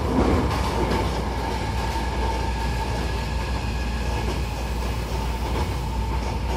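Hankyu 1000-series electric train moving, heard from inside the car by its doors: a steady running rumble with a faint, level high whine over it.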